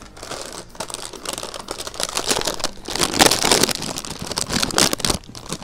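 Plastic snack bag crinkling and rustling as it is handled, in irregular bursts that are loudest about three seconds in.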